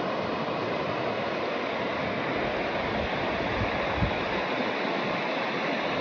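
River water running over rocks in shallow rapids: a steady rush of water. A brief low thump about four seconds in.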